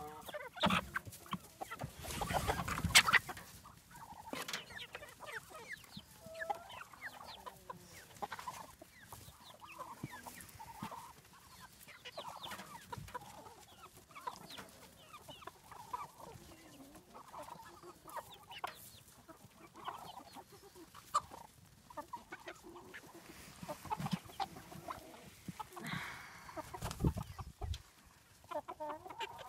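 A flock of chickens clucking as the birds come out of the coop, many short calls overlapping. A louder burst of noise comes about two seconds in and another near the end.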